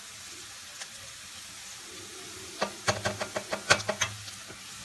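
Chicken, beef and onions sizzling faintly in a steel pot. About two and a half seconds in comes a quick run of light clicks and knocks against the pot, lasting under two seconds, as seasoning is tipped in beside the metal spoon.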